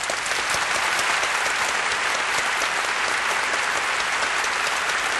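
Audience applauding steadily: dense, even clapping that starts just before and holds at a loud, level volume.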